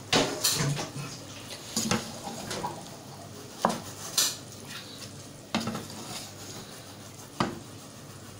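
A spoon stirring chopped spinach into chicken curry in a nonstick pan, knocking and scraping against the pan at irregular intervals about once a second. A low sizzle of the frying runs underneath.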